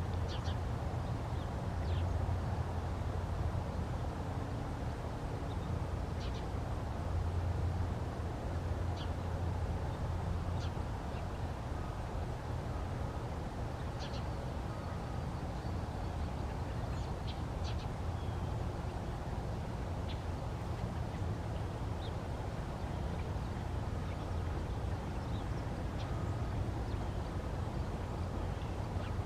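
Outdoor background: a steady low rumble throughout, with faint, scattered short high chips and call notes from birds.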